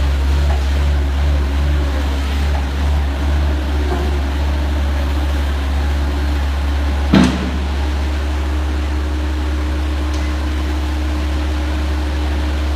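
Fully automatic horizontal cardboard baler running with a steady low machine hum, with one sharp clunk about seven seconds in, after which a steady higher tone joins the hum.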